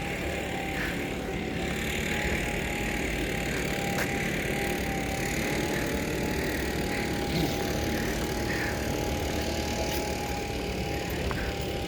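Steady outdoor background noise, mostly a low rumble, with a faint thin whine that wavers slightly in pitch.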